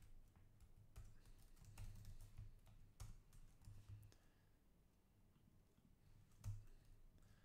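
Faint computer keyboard typing: scattered key taps and a few clicks as text is entered into a form, over a faint low hum.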